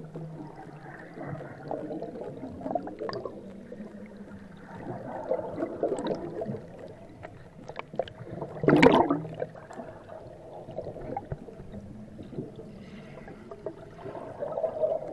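Muffled churning and bubbling of water in a fish trap's live well, heard through an underwater camera. It swells and fades unevenly, with a louder surge about nine seconds in.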